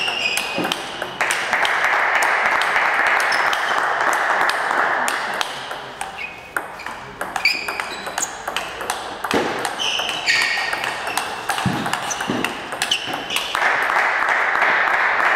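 Table tennis ball clicking back and forth off the paddles and the table in rallies, with short high squeaks. A steady rushing noise comes in twice, for a few seconds each time.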